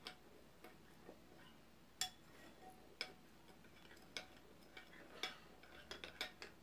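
Light, irregular clicks of a stirring utensil knocking against the container as water and gelatin are stirred, about one a second and closer together near the end.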